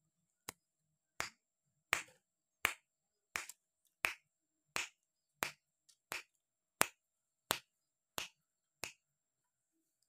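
Caged Javan myna (jalak kebo) giving a steady run of short, sharp clicking calls, about three every two seconds.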